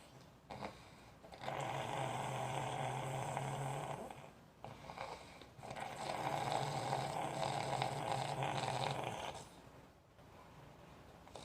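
A sleeper snoring: two long, steady snores a few seconds each, with quiet breaths between them.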